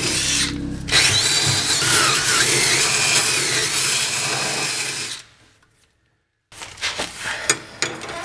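DeWalt cordless drill spinning a wire cup brush against the car's underbody, scrubbing undercoating and rust off the subframe mount area. It lets up briefly just under a second in and stops about five seconds in. Near the end come a few light clicks and knocks as a steel reinforcement plate is handled against the mount.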